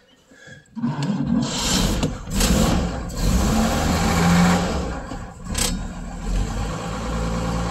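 An old 6-volt Chevrolet's inline-six is cold-started: the starter cranks about a second in, the engine catches right away and runs with uneven rises in speed, then settles toward a steadier run near the end. It starts from about 20 °F with no choke, after a few pumps of the gas pedal.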